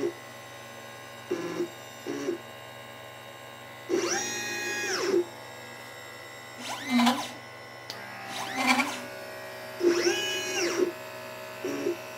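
LitePlacer pick-and-place machine's stepper motors whining as the head moves, the pitch rising as each move starts and falling as it stops. Longer travel moves come about four and ten seconds in, with quick up-and-down moves and brief low buzzes between them, in a cycle that repeats about every six seconds while it places capacitors and resistors.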